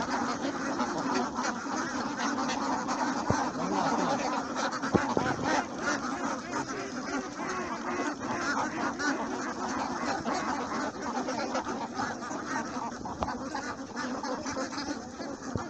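A large flock of domestic ducks quacking together, a dense, continuous chorus of many overlapping calls.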